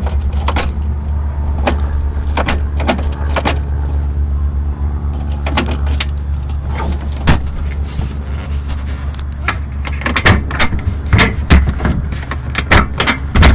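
A key jangling and turning in a BOLT lock cylinder while a toolbox latch is worked, with scattered sharp clicks and knocks that come thicker near the end as the box is shut and locked. A steady engine hum runs underneath.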